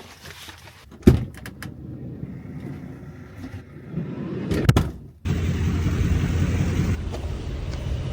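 A camper van's door shuts with a sharp thud about a second in, followed by a few clicks and a second thud near the end of the first five seconds. Then the steady low rumble of the van running on the road cuts in.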